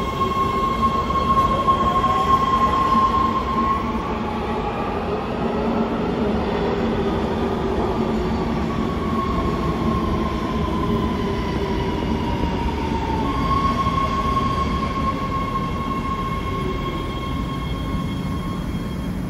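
Los Angeles Metro B Line subway train running through the underground station: a steady rumble under a high whine that glides up in pitch in the first few seconds, then falls between about 8 and 13 seconds in.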